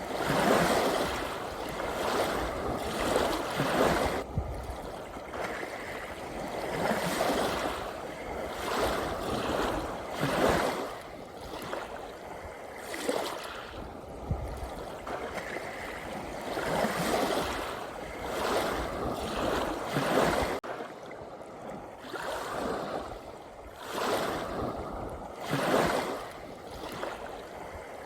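Ocean waves washing in and receding, the surf noise swelling and fading every two to three seconds.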